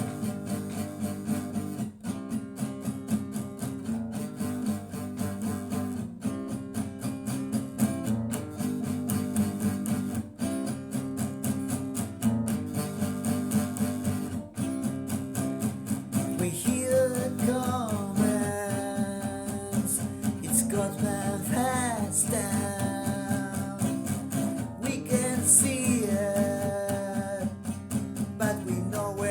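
Rock song intro: strummed guitar chords over a steady beat. About halfway through, a melody line with bending notes comes in over the chords.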